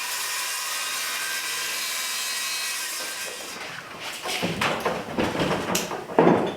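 Circular saw cutting a sheet of OSB, a steady run for about three seconds, then giving way to uneven knocks and rustling.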